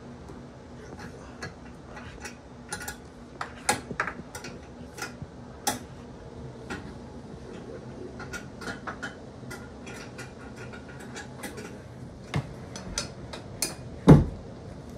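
Irregular small clicks and clinks of hardware being handled and tightened while a bed base is assembled, with one heavier thump near the end.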